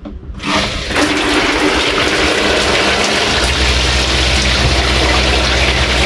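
Motorhome shower head spraying water onto the cubicle wall: a steady hiss that starts just after the mixer is turned on. A low steady hum joins about three seconds in.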